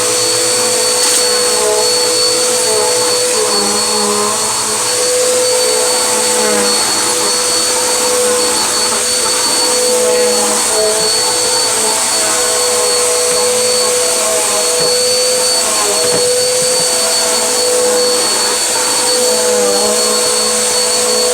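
Vacuum cleaner running steadily with a motor whine, its pitch wavering slightly now and then as the suction load changes while it picks up road salt and dirt.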